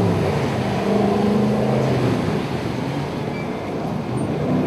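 Jet boat engine running hard across the water, its note dipping and rising as the boat speeds and turns.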